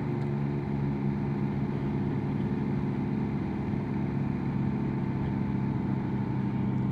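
Motorcycle engine running steadily at an even road speed, heard from inside the rider's helmet, with low wind rumble on the microphone.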